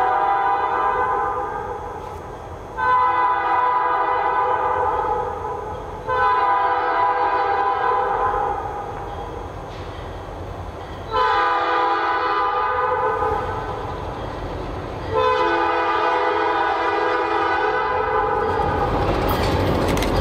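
Diesel locomotive air horn sounding a series of long blasts, each a few seconds and with a fading echo after it, as the train approaches. Near the end the rumble of the oncoming train rises and stays loud.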